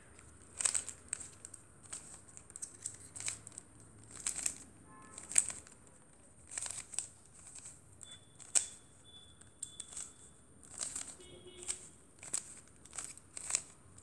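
Plastic layers of a 3x3 Rubik's cube being twisted by hand, giving irregular clicks and clacks, about one or two turns a second.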